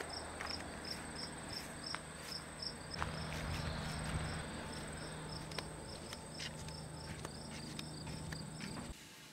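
Summer insects in woods: a steady high-pitched buzz with a cricket-like chirp repeating about two to three times a second, both cutting off abruptly near the end.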